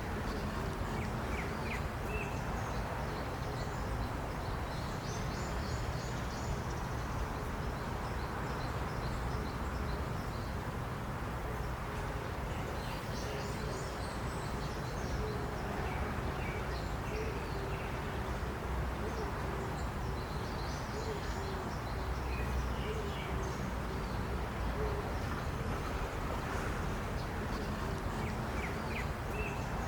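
Small birds chirping and twittering in scattered bursts over a steady rush of wind and outdoor background noise.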